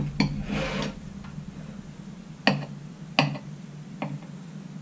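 A table knife cutting a soft layered cake, clicking against the ceramic plate about five times, with a short scrape near the start.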